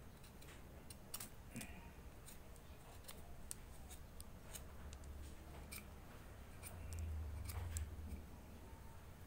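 Kitchen knife scraping and paring the bark off an avocado branch cutting in short, irregular strokes with small clicks, stripping the bark tissue so the cutting will root. A low rumble swells about seven seconds in.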